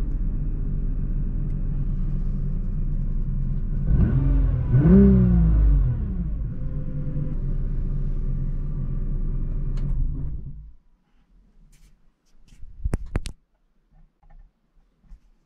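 Stock Nissan GT-R R35's twin-turbo 3.8-litre V6 idling, heard from inside the cabin, with one quick throttle blip about four seconds in that rises and falls in pitch. About ten seconds in the engine is switched off and stops, followed by a couple of sharp clicks.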